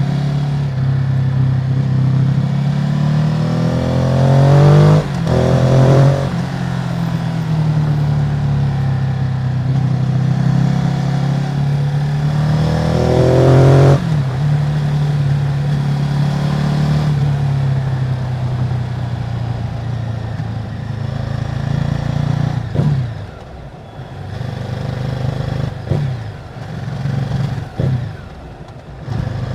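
Ducati Multistrada 950's Testastretta L-twin on its stock exhaust, being ridden: revs climb and cut off sharply at gear changes about five and fourteen seconds in. Near the end the engine drops off on a closed throttle with three brief rev blips.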